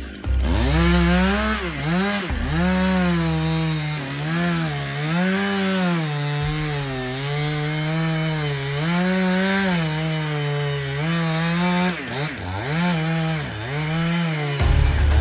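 Chainsaw cutting into a tree, the engine pitch rising and falling as the chain loads up in the wood and recovers, with a few sharp dips near the end.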